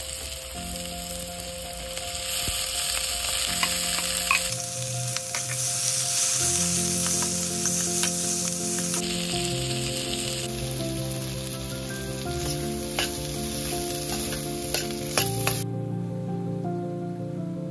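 Food sizzling as it fries in hot oil in a pan, with scattered clicks and scrapes of a utensil stirring it; the sizzle stops shortly before the end. Soft piano music plays throughout.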